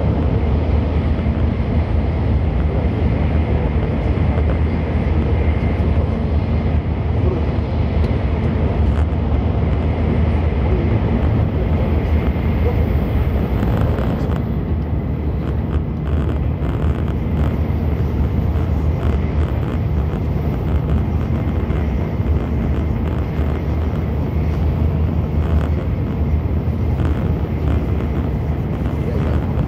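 Nozomi Shinkansen bullet train running at speed, heard inside the passenger cabin: a steady, even low rumble with a faint steady high whine.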